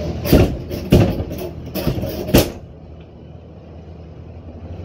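Stuck wooden kitchen cabinet drawer being forced out of its cabinet: four loud knocks and bangs in the first two and a half seconds as it is yanked and wrenched loose.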